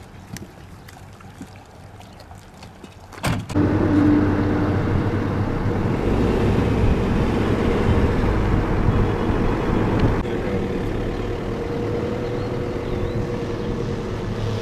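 A motor vehicle driving, its engine and road noise steady, cutting in suddenly about three seconds in; before that only a quiet background with a few faint ticks.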